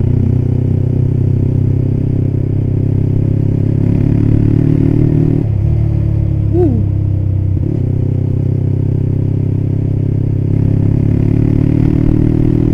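Yamaha Scorpio 225's single-cylinder four-stroke engine running while riding, through a cheap aftermarket creampie-style silencer. A deep, bassy exhaust note that drops in pitch about halfway through, then holds steady and climbs a little again.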